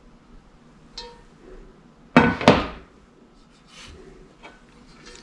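Heavy Le Creuset enameled cast-iron Dutch oven set down on a wooden floor: two loud clunks a quarter second apart about two seconds in, with a short ring, after a faint click about a second in.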